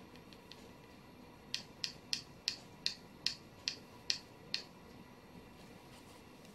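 A run of about nine sharp, light clicks, evenly spaced at two to three a second, from a paintbrush tapping against the rim of a jar of acrylic paint. A few much fainter taps come just before.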